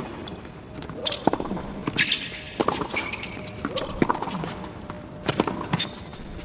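Tennis rally on a hard court: racket strikes on the ball, a little over a second apart, with sneakers squeaking on the court between shots.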